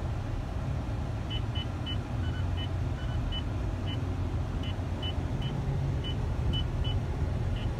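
Steady low rumble of a vehicle driving, heard from inside the cabin. A series of short, high beeps at uneven spacing starts about a second in.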